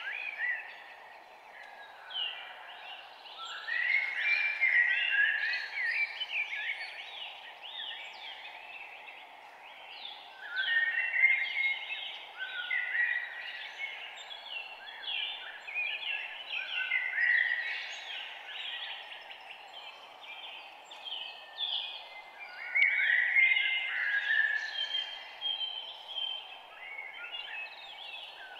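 Several birds chirping and calling in overlapping bursts that come and go every few seconds, over a steady background noise.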